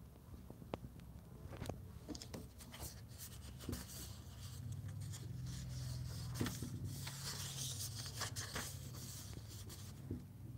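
Paper pages of a printed book being handled and turned: rustling and light clicks, with the rustle of a page turning loudest in the middle to later part, over a low steady hum.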